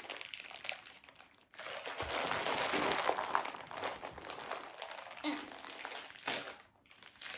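Toy packaging crinkling and rustling as it is handled and unwrapped, in two spells, the louder one starting about two seconds in and stopping shortly before the end.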